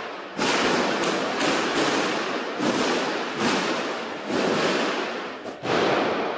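Gunfire echoing inside a large supermarket: about nine loud shots at irregular intervals, each ringing out in a long reverberant tail.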